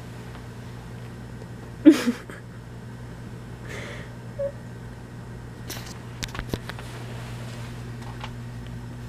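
A cat gives a brief call about two seconds in and a fainter one around four seconds, while playing in bedding. A few sharp clicks and rustles follow near the middle, over a steady low hum.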